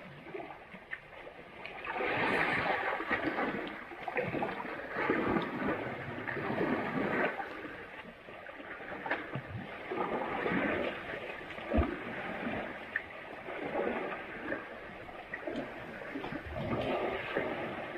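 Asian elephants wallowing in river mud and water: irregular swells of splashing and sloshing, with one sharp knock about twelve seconds in.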